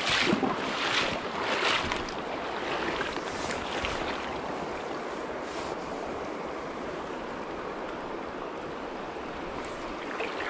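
Shallow creek water running steadily over rocks, with a few short louder noises in the first two seconds.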